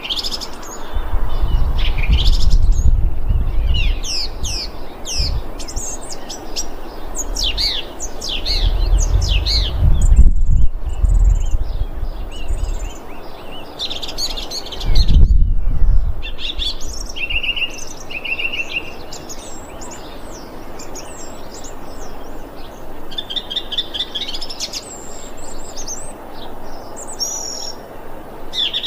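Thrush singing: a varied run of quick chirps, slurred whistles and short trills that goes on without a break. Three bursts of low rumble, a few seconds in, around ten seconds and about fifteen seconds in, are the loudest sounds.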